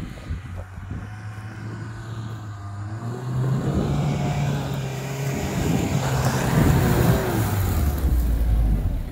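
Quad bike (ATV) on oversized tyres driving up close, its engine getting louder as it approaches. The engine note rises about three seconds in and drops low near the end.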